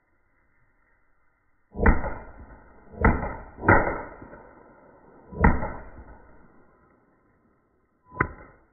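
Firework going off inside a plastic bucket: five sharp bangs at uneven gaps of one to three seconds, each fading quickly, the last one smaller.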